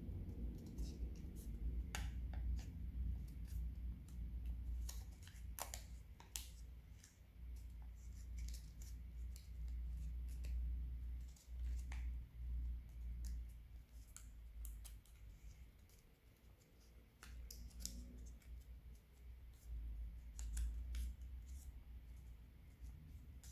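Origami paper being handled and folded by hand: soft rustling with scattered sharp crackles as the paper is creased and tucked, over a low rumble.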